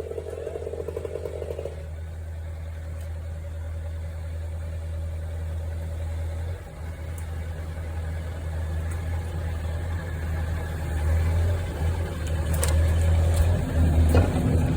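Boom truck's engine running steadily, growing louder in the last few seconds.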